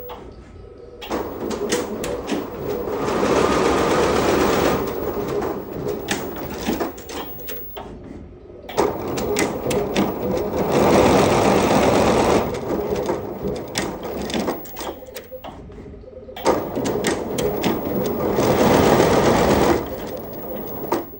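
Multi-head computerized embroidery machine stitching: a rapid mechanical clatter of needles and presser feet that swells louder and denser three times, with sharper separate clicks in between.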